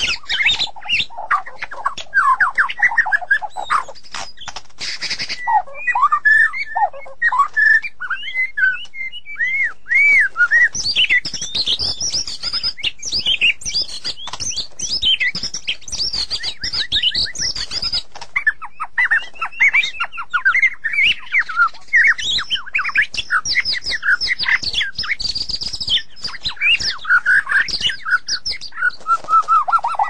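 White-rumped shama singing a long, varied song of clear whistled and slurred notes with dense runs of fast chattering phrases, broken by a short pause about eighteen seconds in.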